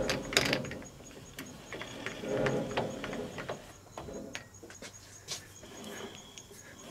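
Light metal clicks and knocks of a dial indicator being set against round stock in a lathe's six-jaw chuck, and of the chuck being turned by hand to check runout. A brief faint squeak comes about halfway through.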